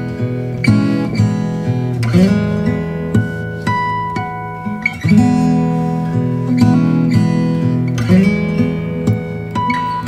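Background music: an acoustic guitar, plucked and strummed.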